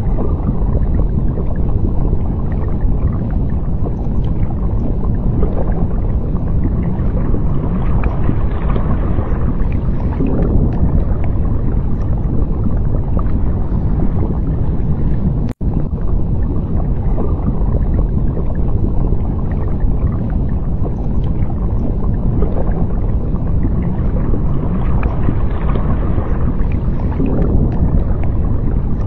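Underwater ambience: a loud, steady low rushing noise, broken by a brief dropout about halfway through.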